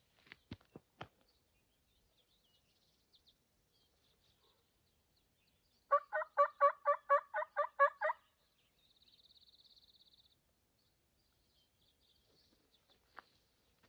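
Turkey call blown by a hunter: a quick run of about a dozen evenly spaced notes lasting about two seconds, after a few footsteps on a dirt trail at the start.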